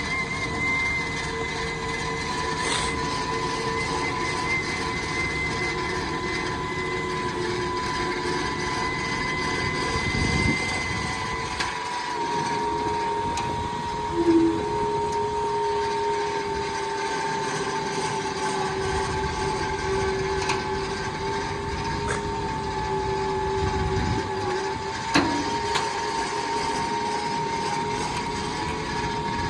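Hydraulic pump of a Ford F-550's Switch-N-Go hooklift system whining steadily under load as it hoists the tilted bed carrying a compact track loader. The truck's engine runs underneath, and there are a few short clanks, the loudest about a third and five-sixths of the way through.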